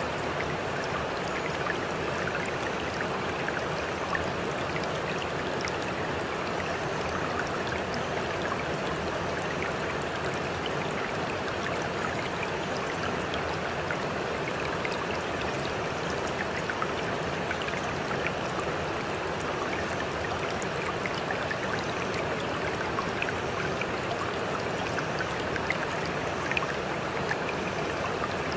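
Steady flowing-water ambience, like a running stream, with scattered faint drip-like ticks. It is a constant background bed of the kind used to mask subliminal affirmations.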